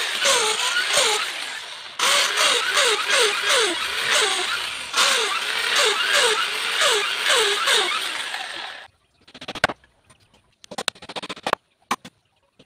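Handheld corded electric drill boring into a wooden chair frame. It runs in three stretches, starting again about two and five seconds in, with a repeated falling squeal, and cuts off a little before the end. It is followed by a few sharp hammer knocks on the wood.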